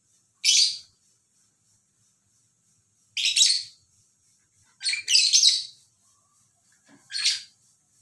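Small pet parrot giving high, harsh calls: four of them about two seconds apart, the third one doubled.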